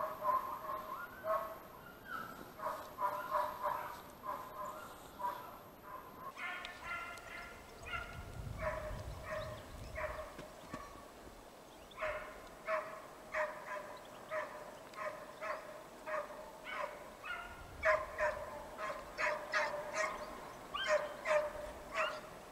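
Hunting dogs baying in a long run of short, high yelping barks, one to three a second in an uneven rhythm: the dogs in full cry on a hare's trail.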